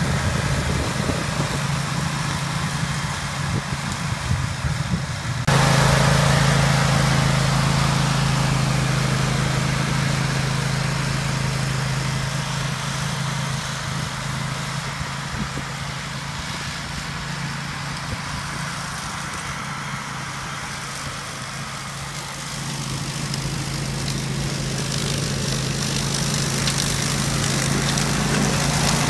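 Grillo Climber 9.18 all-wheel-drive ride-on mower running steadily under load while cutting long grass. It jumps louder about five seconds in, fades gradually as the mower moves off, and grows louder again near the end as it comes back.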